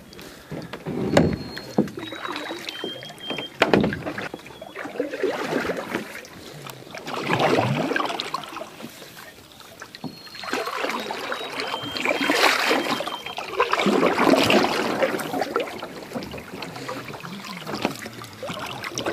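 Canoe paddle strokes: the blade dipping and pulling through calm water, splashing and swirling in uneven swells every couple of seconds, with a few sharp knocks. The strokes grow louder past the middle as the canoe comes close.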